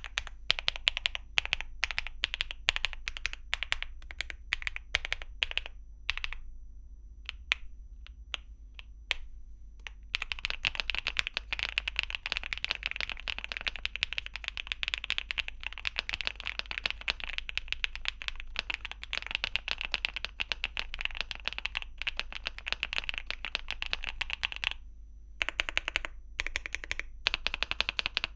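Akko Mineral 02 mechanical keyboard with Akko Mirror linear switches and Cherry-profile double-shot ABS keycaps being typed on, with a sharp sound. Separate keystrokes with short pauses for about the first ten seconds, then fast continuous typing, broken by a brief pause near the end.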